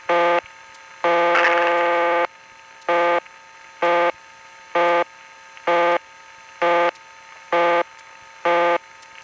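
Rural-style telephone busy signal of a private telephone system, heard down an analog line: a harsh buzzy tone pulsing about once a second. About a second in, the tone is held for over a second because the interrupter sticks. A faint steady line hum lies underneath.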